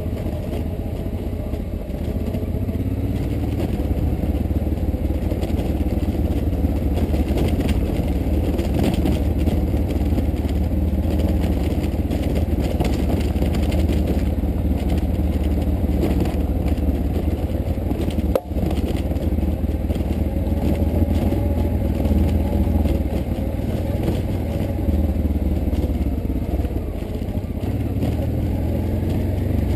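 A vehicle engine running while driving, its pitch wandering up and down over a heavy low rumble of wind and road noise, with a crunching texture from the surface underneath.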